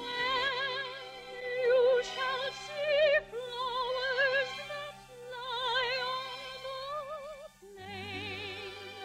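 A woman's operatic soprano voice singing a slow melody with wide vibrato over soft held orchestral accompaniment, from a 1948 radio broadcast recording. The voice breaks off briefly about three-quarters of the way through, then resumes on a lower phrase.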